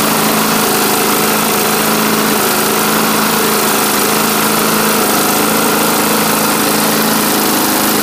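Lawn tractor engine running steadily at an even speed, on its first run after sitting unused for a year.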